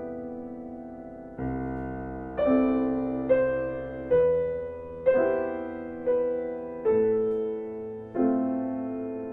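Slow solo piano music: notes and chords struck about once a second, each dying away before the next.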